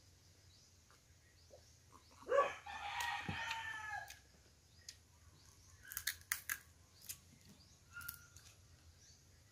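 A rooster crows once about two seconds in, a single drawn-out call of about two seconds. Later comes a scatter of sharp clicks and cracks as crab shell is broken apart by hand.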